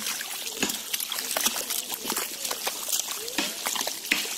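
Splashing and wet squelching in shallow muddy water, a quick run of small splashes from hands groping through the mud.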